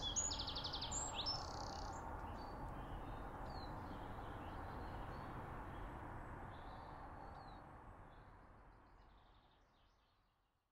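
Small birds chirping and trilling, loudest in the first second or so, with fainter calls later over a steady outdoor background hiss; the sound fades out over the last few seconds.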